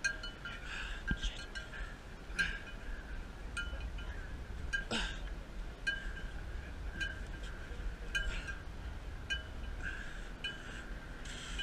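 Light metallic clinks, each a short ring on the same couple of pitches, coming irregularly every half second to second over a low rumble of wind and camera handling. One short falling squeak about five seconds in.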